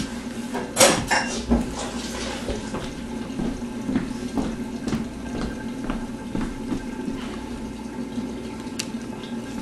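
Fish and tomato sauce simmering in a lidded wok, a steady bubbling and crackling over a low hum. A short clatter about a second in.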